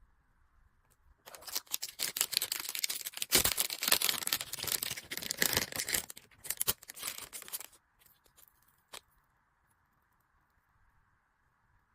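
Packaging being torn open and crinkled by hand in a stretch of rustling and tearing that lasts about six seconds, then a single click.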